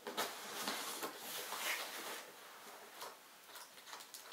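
Scissors cutting and scraping at the packing tape on a cardboard parcel, with the box rustling and scratching under the hands. The scraping is busiest in the first half, then dies down to a few small clicks.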